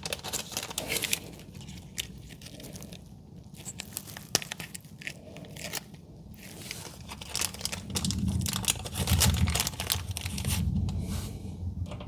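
Close handling noise of garage door hinge hardware being worked by hand: scattered clicks, scrapes and crinkling, with heavier low rumbling from about eight seconds in.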